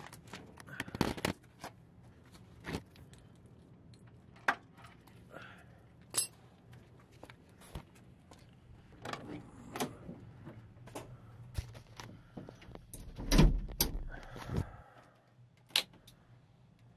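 Scattered clicks, knocks and rustling as a phone camera is handled while someone climbs into a pickup's cab, with one heavy thump about two-thirds of the way through. A faint steady low hum runs underneath.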